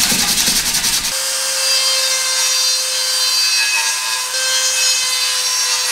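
An abrasive pad scrubbing the aluminium heat-exchanger shell in quick strokes. About a second in, a die grinder takes over, running at a steady pitch with a constant whine as it grinds out the seal seat in the aluminium shell.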